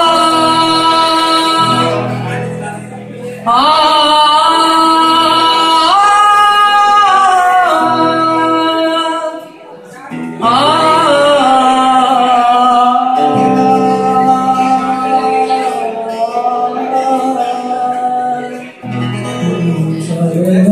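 Live band: a male vocalist sings long held notes that slide up into pitch, in three phrases, over acoustic guitar and bass guitar.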